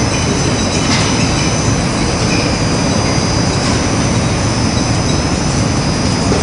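Industrial machinery running with a loud, steady noise and a few steady high whines above it.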